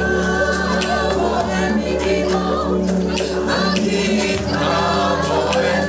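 Gospel worship music: voices singing over held, sustained chords, with light percussion.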